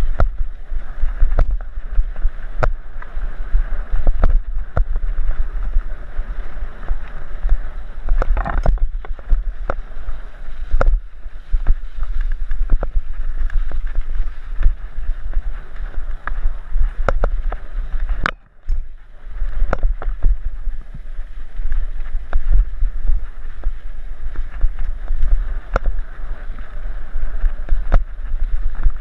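Wind buffeting a helmet-mounted camera's microphone and the low rumble of mountain bike tyres on dry dirt singletrack, broken by frequent sharp clicks and knocks as the bike rattles over bumps. The noise drops away briefly about two-thirds of the way through.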